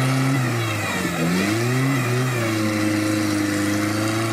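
Off-road 4x4's engine revving under load: the revs are held high, drop briefly about a second in, climb again and then hold steady.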